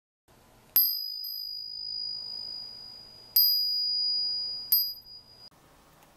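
A small brass bell rung three times, each strike giving a high, clear ring that fades; the last ring is cut off short.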